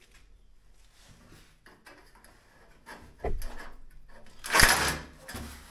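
Metal drywall stud framing being fixed. Faint handling noise, a low knock a little after three seconds, then a short loud burst near the end as a screw is driven into the stud.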